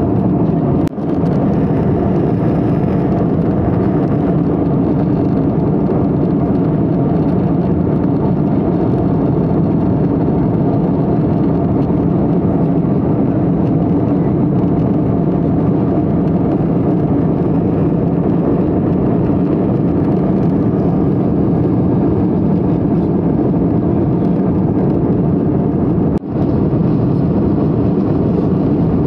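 Cabin noise of a jet airliner in flight: the steady, even rush of the engines and the airflow past the fuselage. The level dips briefly twice, about a second in and near the end.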